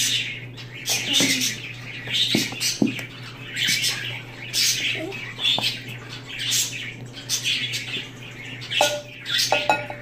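Metal spoon stirring glue in a glass bowl: scratchy scraping and squeaking against the glass about once a second, with a few light clinks.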